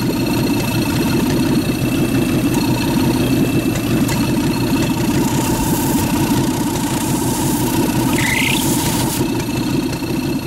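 Rat rod's engine idling steadily, heard close up in the engine bay. A brief rising squeal is heard about eight seconds in.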